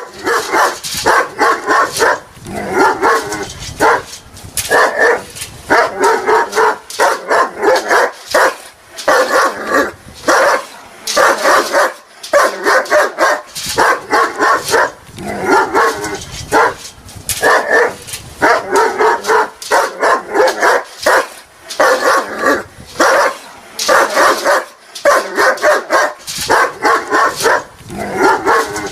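A dog barking aggressively in rapid volleys of short, sharp barks, repeating over and over with brief pauses between volleys.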